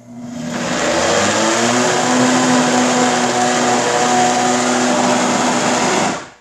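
Homeleader 70 oz professional countertop blender running, blending a berry smoothie: the motor spins up over about a second, runs steadily at high speed, then cuts off suddenly near the end.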